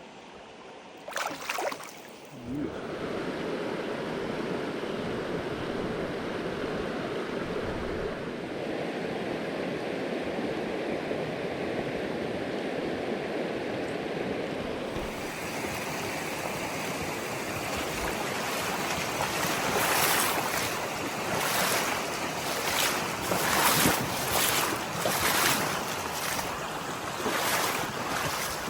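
Rushing river water, a steady wash that grows brighter and more surging in the second half.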